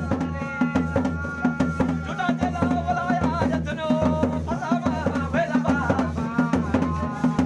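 Music: drums beating a quick, steady rhythm under a voice singing.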